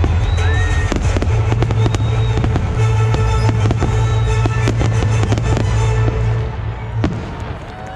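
Fireworks finale: a dense, rapid barrage of shell bursts and crackle over a deep rumble, with music playing along. The barrage thins out about seven seconds in, and crowd cheering starts near the end.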